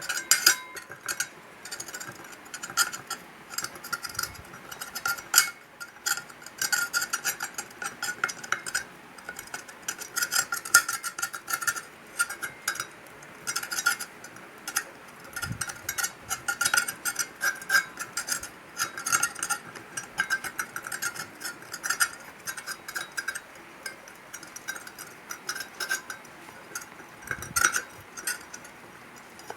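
Irregular scraping, tapping and clinking of metal tools on metal parts, hand work done to even out a part.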